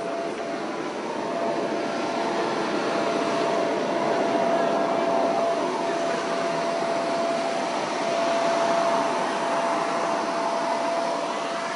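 A steady machine-like rushing noise that swells gently in level, with a constant mid-pitched whine through it.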